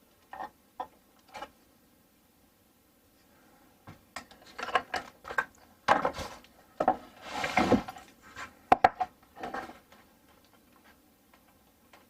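Wooden cabinet door and small hinge hardware being handled: three light knocks, then several seconds of knocking and clattering with a brief scrape in the middle.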